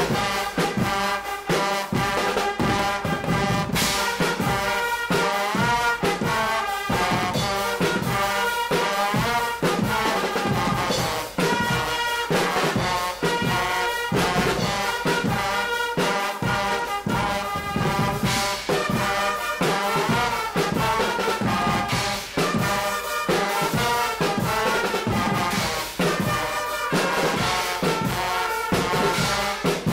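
Guggenmusik band playing: trumpets and trombones blaring a tune over a steady beat of bass drums, snare drums and cymbals.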